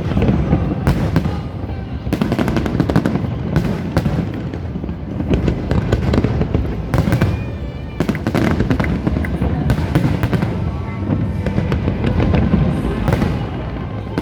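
Aerial fireworks display: a dense run of bangs and crackling bursts over a continuous low rumble, with music playing underneath.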